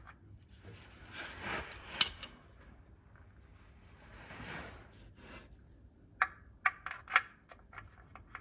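Small metal parts clicking and scraping as the bung is worked out of the bell housing and the timing pin is tried in, by hand under the vehicle. A sharp metallic click about two seconds in is the loudest sound, and a quick run of lighter clicks follows near the end.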